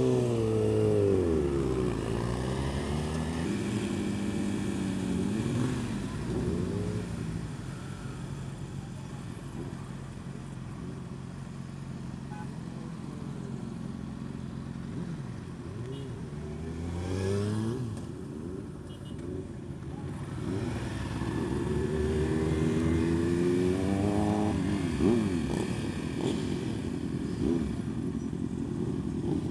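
Yamaha R15's 150cc single-cylinder engine running under way, its revs rising and falling repeatedly as the rider accelerates and backs off.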